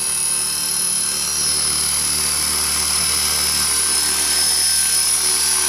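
Radio-controlled model helicopter hovering, its motor and rotor giving a steady high-pitched whine.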